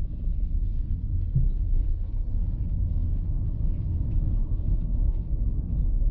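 Low, steady road and tyre rumble inside the cabin of an electric car driving at about 50 km/h, with no engine sound over it.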